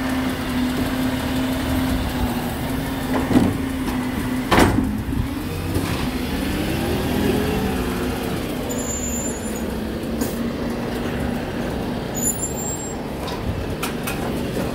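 Recycling truck's diesel engine running with a steady hum, with two sharp knocks about three and a half and four and a half seconds in.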